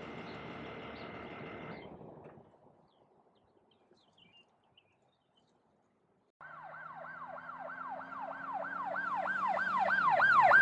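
A steady hum that cuts off a little after two seconds in, then several seconds of near silence. An emergency-vehicle siren then starts in a fast yelp, about four pitch sweeps a second, over a low steady drone, growing steadily louder as it approaches.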